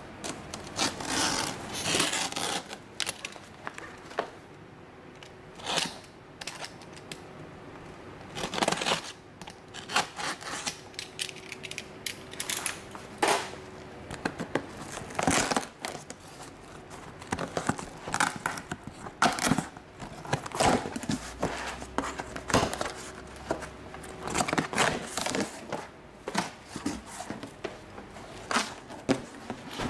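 A taped cardboard box being opened by hand: a utility knife slitting the packing tape, tape tearing and cardboard flaps scraping, in irregular short bursts.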